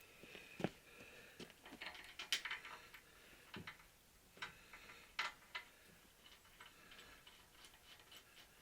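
Scattered faint clicks and light taps, roughly one a second, from tools and parts being handled at a steel workbench.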